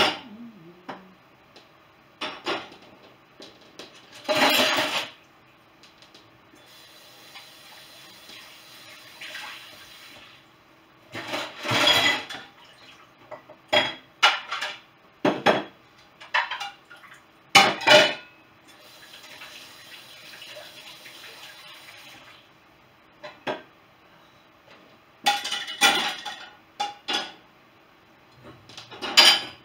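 Ceramic plates and dishes clattering and clinking as they are stacked into a dishwasher rack, with a kitchen tap running twice in short spells while dishes are rinsed at the sink.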